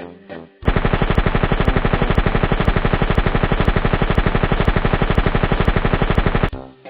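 Sustained burst of machine-gun fire: a loud, fast, even rattle of shots that starts abruptly and cuts off suddenly after about six seconds.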